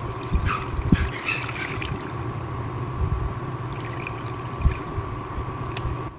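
Water pouring in a kitchen, with a few low knocks, over a steady hum.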